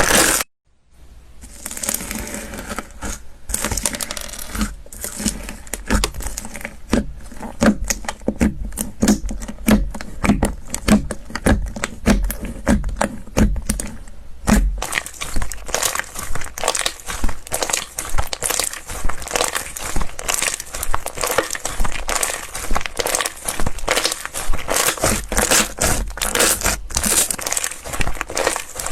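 Slime being squeezed and pressed by hand, giving dense crackling, clicking and small popping squelches. The sound breaks off briefly just under a second in. Through the middle it settles into low pops about once or twice a second, then turns to a denser crinkly crackle.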